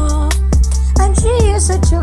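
Music: a song with a steady beat, a deep bass line and a sung vocal melody.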